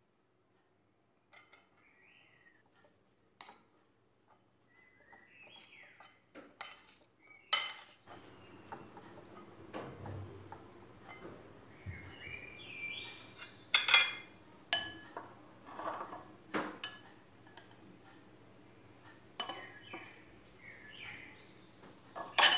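Metal spoon stirring rice and diced vegetables in a glass bowl, with irregular clinks of the spoon against the glass and a few louder knocks.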